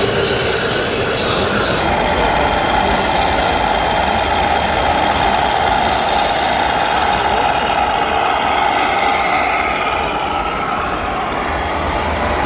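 Briefly the whir of a garden-scale model train running on its track, then, about two seconds in, steady diesel truck engine sound from the sound modules of 1/14-scale RC trucks driving along.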